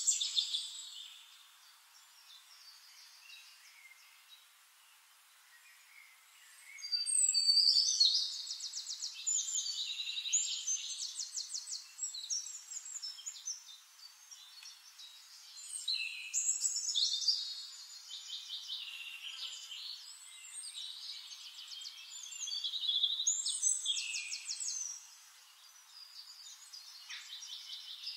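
Songbirds singing: several loud phrases of rapid trilled chirping a few seconds apart, with quieter chirps between.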